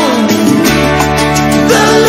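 Music: a Christian rock ballad with guitar. A melody line slides down at the start, a low bass note comes in under a second in, and a line climbs again near the end.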